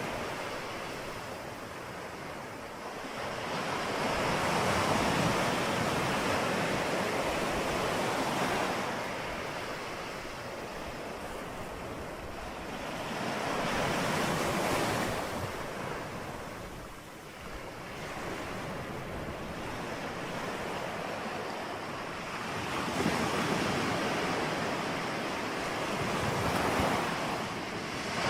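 Ocean waves breaking and washing on a shore, the surf swelling and ebbing in slow surges several seconds apart.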